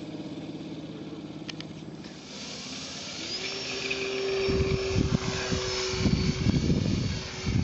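RC Cessna 421 model's twin motors and propellers throttling up for its takeoff roll: a steady hum that rises about three seconds in to a held, high-pitched whine as the plane lifts off. From about halfway, wind buffeting the microphone is the loudest sound.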